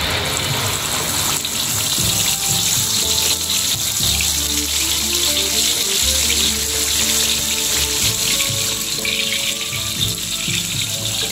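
Blended dried-chili paste frying in plenty of hot oil in a wok: a steady, dense sizzle, over background music with a melody and a low beat.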